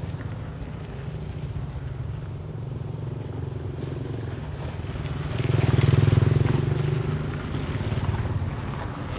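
Medium road traffic on a gravel road, flowing steadily, with engines humming and tyres on gravel. One vehicle passes close about six seconds in, the loudest moment, and another passes more softly near the end.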